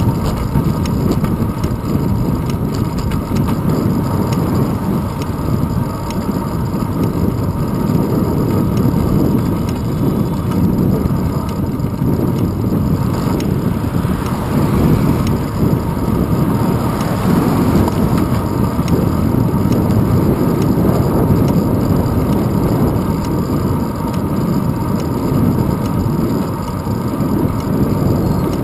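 Wind buffeting the microphone and road rumble from a bicycle rolling along asphalt, picked up by a handlebar-mounted camera: a loud, steady, mostly low-pitched rush.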